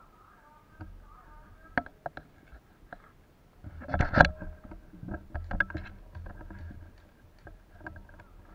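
Movement and handling noise from an airsoft player's rifle and gear, with steps on dry leaves and gravel: scattered sharp clicks and knocks, and a louder cluster of knocking and rustling about four seconds in.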